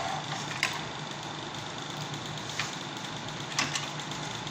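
Window air conditioner running with a steady hum, with a few sharp clicks over it: one under a second in and a close pair near the end.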